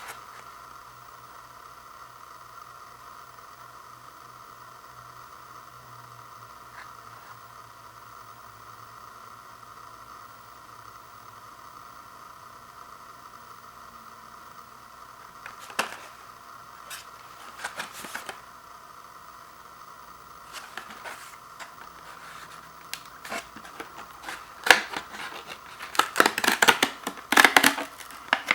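Plastic toothbrush packaging being handled and pulled open: scattered clicks and crinkles from about halfway, growing dense and loudest near the end, over a steady background hum.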